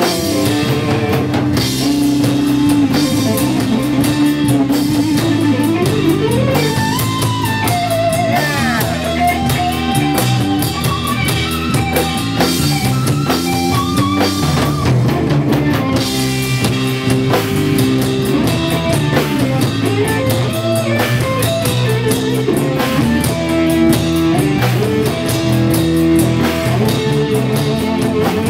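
Instrumental jazz-fusion band playing live: electric guitar lead over a drum kit, with bent, gliding guitar notes about six to nine seconds in.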